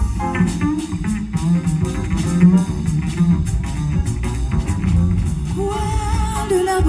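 Jazz double bass played pizzicato in a busy plucked solo line, with piano behind it. Near the end a woman's voice comes in singing a held melody.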